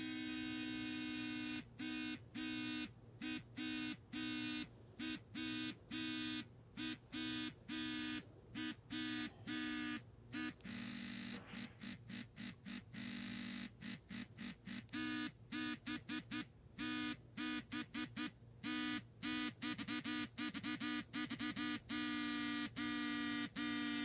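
Small vibration motors in remote-controlled vibrating nipple clamps buzzing in pulsing patterns, switching on and off in quick, irregular rhythms. About halfway through the buzz drops lower for a couple of seconds, then the fast on-off pulsing resumes and turns into a longer steady buzz near the end.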